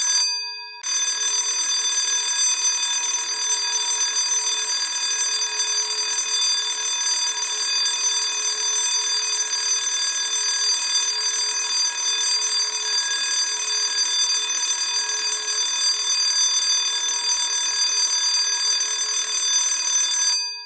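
School bell ringing continuously. It breaks off briefly just after the start, rings on steadily, and cuts off suddenly near the end.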